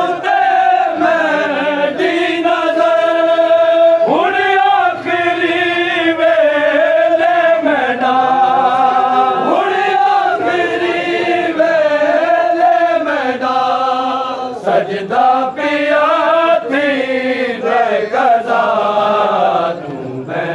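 Men's voices chanting a noha, a Shia mourning lament, in unison, with long held notes that slide from pitch to pitch.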